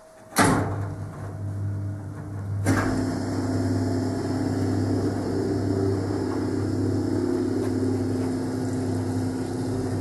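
Servis Superheat washing machine's electric motor starting suddenly about half a second in and running with a steady hum; a second sharp start near three seconds in adds a higher hum as the pump empties the wash water through the drain hose.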